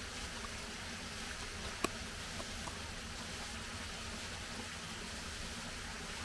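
A raccoon feeding at close range: a few small clicks of its eating, one sharper click about two seconds in, over a steady hiss.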